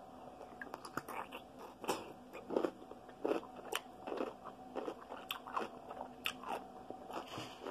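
Crunchy bites and chewing of a whole dill pickle: a run of short, irregular crunches.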